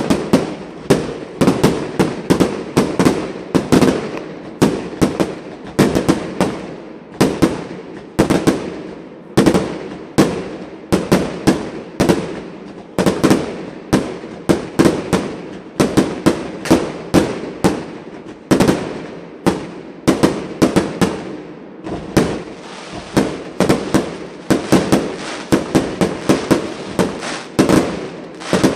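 Aerial fireworks shells bursting in quick succession: a dense, unbroken run of sharp bangs, several a second, each with a short echoing tail.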